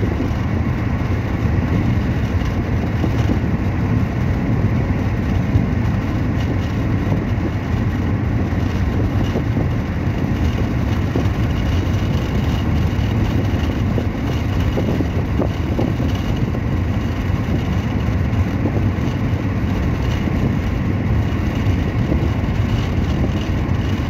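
Steady low road and engine rumble heard from inside a moving car's cabin, with a faint high tone running through it.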